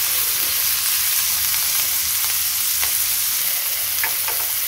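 Diced tomato, onion and garlic sizzling steadily in hot oil in a wok, stirred with a wooden spatula, with a few light scrapes.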